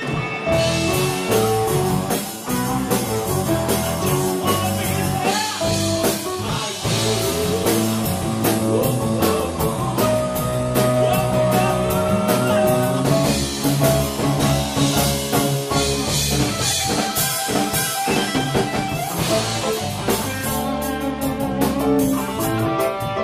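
Live rock band playing a blues-rock song: electric guitar over a drum kit, loud and steady.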